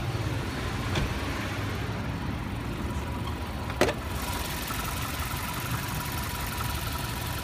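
2007 Mazda CX-7's turbocharged 2.3-litre four-cylinder idling steadily. A sharp click a little past halfway marks the hood being opened, and from then on a steady whine and hiss from the engine bay come through more clearly.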